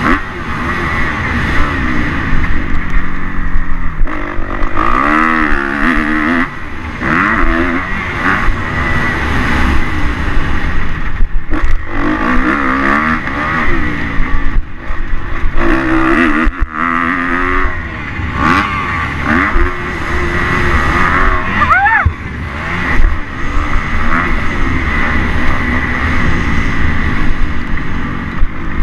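Kawasaki KX250 motocross bike engine revving up and down repeatedly as it is ridden hard around the track, with brief drops in throttle, over wind rushing on an onboard microphone.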